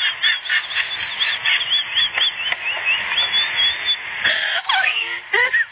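Rapid high-pitched squeaky calls from a play-fighting kitten and puppy, several short rising-and-falling squeaks a second. A few lower cries falling in pitch come near the end.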